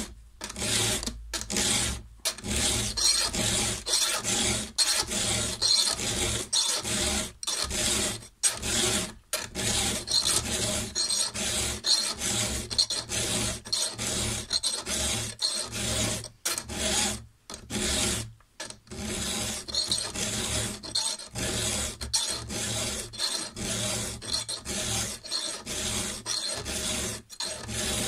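Round chainsaw file rasping across a saw-chain cutter, sharpening it by hand in repeated strokes about once a second, with a short break about two-thirds of the way through.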